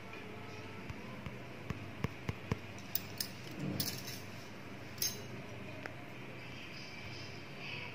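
Light clinks and taps against a steel mixie jar holding eggs and powdered sugar: about a dozen short, scattered clicks in the first five seconds, over a faint steady hum.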